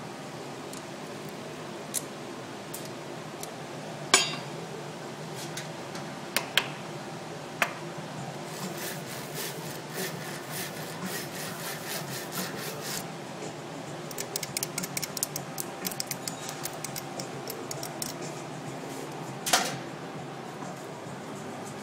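Glassblowing tools knocking and clinking against glass and the metal pipe: single sharp knocks, a loud one about four seconds in and another near the end, and a quick run of ticks in the middle, over a steady low hum.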